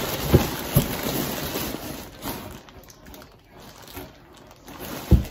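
Packaging rustling and crinkling while it is rummaged through, with a few soft knocks, loudest in the first two seconds and then dying down, and one sharp thump near the end.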